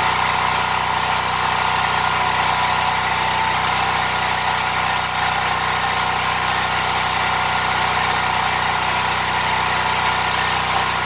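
Arc welding: a steady hiss over a low electrical hum, running without a break.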